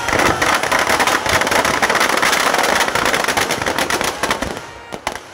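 Firecrackers packed inside a burning Ravana effigy going off in a dense, rapid crackle like a long string of firecrackers. Near the end the crackle thins out to a few separate bangs.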